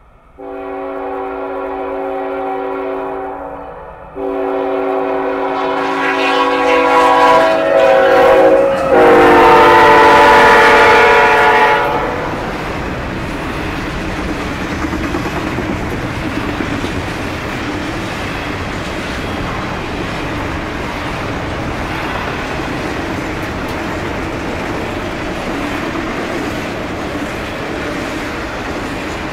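A GE diesel locomotive's air horn sounds a chord-like blast, breaks briefly, then blows again, louder and dropping in pitch as the locomotive passes about nine seconds in. The horn stops about 12 seconds in, leaving the steady rumble and clatter of a long intermodal train's double-stack and trailer cars rolling by.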